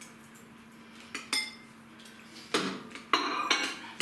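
Dishes and cutlery handled at a kitchen counter: a sharp ringing clink about a second in, then clattering and scraping near the end, over a steady low hum.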